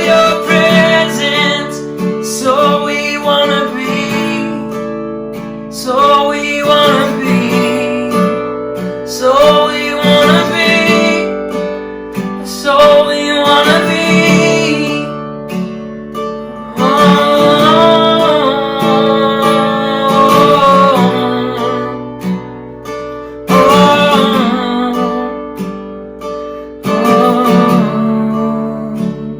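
Worship song on a strummed acoustic guitar, with a singer's voice carrying the melody.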